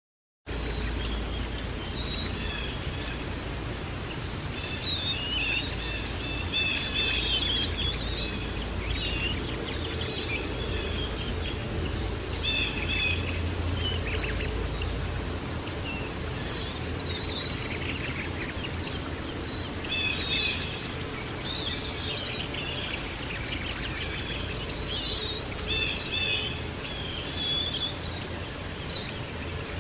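A chorus of small songbirds chirping and trilling busily over a steady rushing background noise, starting abruptly just after a moment of silence.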